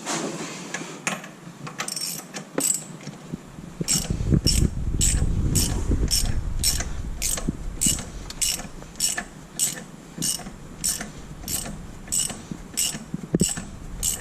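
Hand ratchet with a 15/16 deep-well socket clicking steadily, about two clicks a second, as it draws the crank pulley (harmonic balancer) onto the crankshaft of a 6.0 L LS V8. A low rumble runs under the clicks for a few seconds near the middle.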